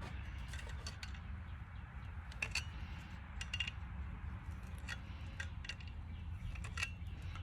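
Scattered light metallic clicks and scrapes of hand tools working a radiator hose clamp, a few irregular ticks every second or so, over a steady low hum.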